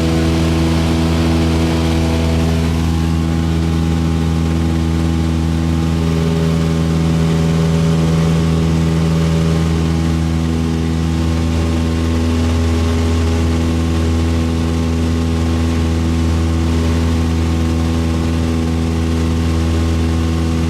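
Cessna 172 light aircraft's piston engine and propeller running steadily in flight, a loud, even drone with an unchanging pitch.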